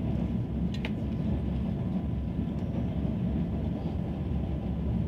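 Cabin noise aboard an ETR 485 Pendolino electric train running slowly: a steady low rumble of the wheels on the track, with a short high squeak just under a second in.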